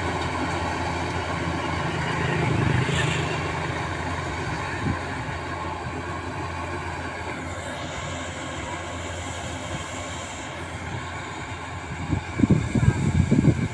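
Kubota rice combine harvester running steadily while cutting and threshing, a continuous engine drone with a low hum. Near the end, irregular low thumps cut in, louder than the machine.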